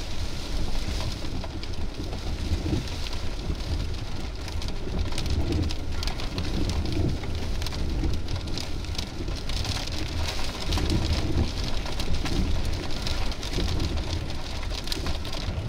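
Heavy rain pattering steadily in a thunderstorm, with a low rumble of wind buffeting the microphone.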